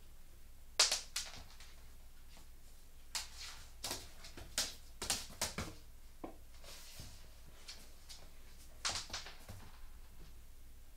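American Staffordshire Terrier puppy crunching something hard in its jaws: irregular sharp crunches in clusters with pauses between.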